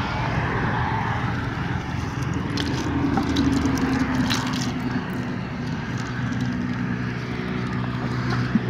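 A steady low engine hum, with scattered light clicks and rustling as a weighted cast net is handled and emptied onto grass.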